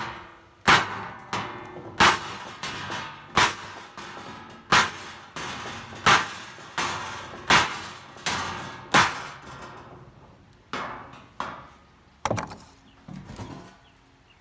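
Hammer blows on welded metal test pieces, about twenty sharp ringing clangs at roughly one and a half a second, growing weaker and further apart in the last few seconds: a strike test of practice welds, which hold without breaking.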